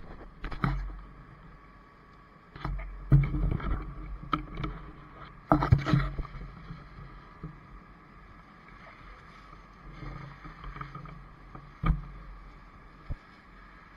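Fire engine's engine and pump running steadily in pumping operation, a constant drone, with several sharp knocks and clatter close by, the loudest about three and six seconds in and one near the end.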